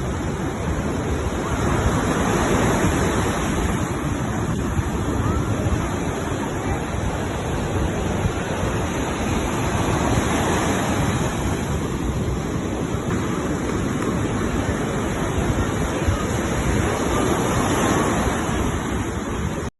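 Steady rush of wind over the microphone mixed with the wash of the sea, without letting up, cutting off abruptly at the end.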